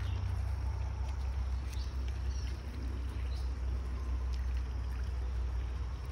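Outdoor noise beside a shallow rocky creek: a steady low rumble under the running water's hiss, with a few faint high chirps.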